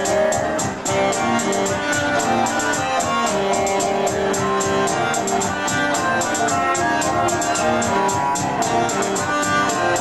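Live instrumental band playing: saxophone and keyboard notes held over percussion, with a quick, even ticking beat.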